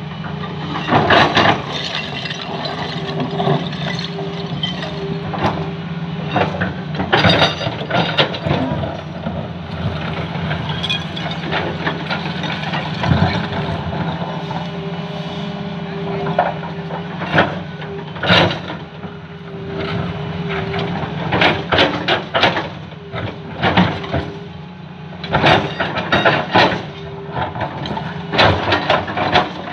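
Diesel engines of tracked hydraulic excavators running steadily, with repeated loud clattering and crunching as the bucket digs into and drops broken brick and concrete rubble.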